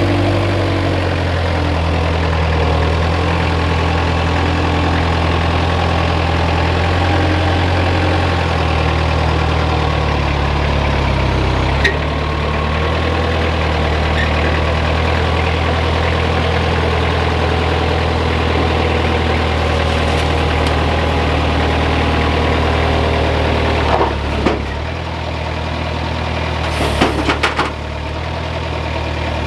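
Moffett truck-mounted forklift's engine running steadily while it manoeuvres and works its forks, with a few sharp knocks near the end.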